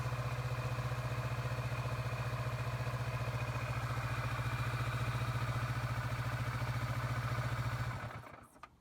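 2017 Kawasaki Vulcan 650S parallel-twin engine idling steadily, then shut off about eight seconds in.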